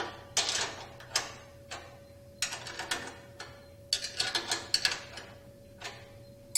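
Ratchet wrench clicking in short, irregular runs as the 5/16-inch bolts holding a helicopter's secondary drive unit are lightly snugged.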